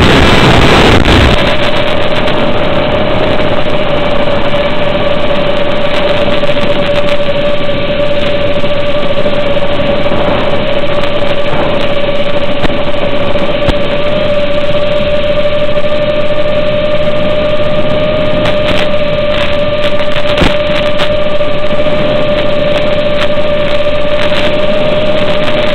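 Audio carried over an analog FPV video link: a steady whine over a hiss of static. A louder burst of static at the start coincides with the video signal breaking up.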